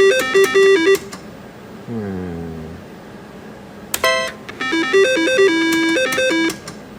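Double Diamond reel slot machine playing short electronic beeping melodies in stepped tones, with a chime in the middle: its sounds for a spin and a small cherry win.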